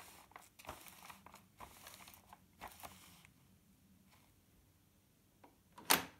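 Paper music roll of an Aeolian Pianola push-up piano player rustling and crackling as it is wound over the tracker bar, with small clicks from the mechanism. One sharp knock near the end is the loudest sound.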